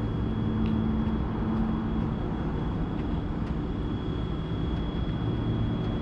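Bobcat S530 skid steer's diesel engine idling steadily, with a thin high whine running over the low drone.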